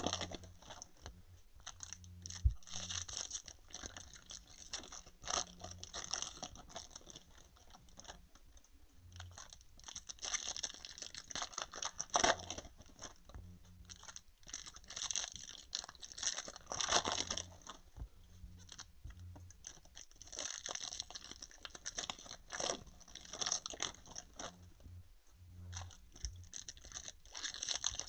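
Crinkling and rustling of trading-card pack wrappers being opened and handled, with small taps and rubs of cards, coming in irregular bursts.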